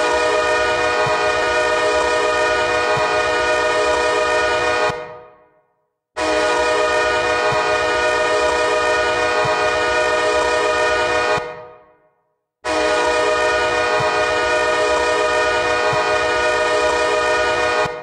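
Ice-hockey arena goal horn sounding three long, steady blasts of about five seconds each, with a short gap between them and each blast trailing off at its end; it signals a goal scored.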